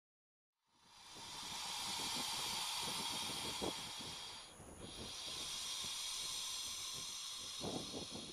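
Anaconda breathing: two long hissing breaths, the first starting about a second in and the second following after a brief pause, fading near the end.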